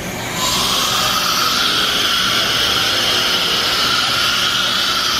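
Thermwood CS 45-510 CNC router running: a loud, steady hiss with a whine in it that starts about half a second in and creeps slightly up in pitch.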